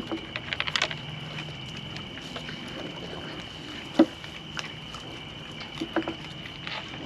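Scattered clicks and knocks over a steady high-pitched tone, with a quick run of clicks about a second in and one sharp knock about four seconds in.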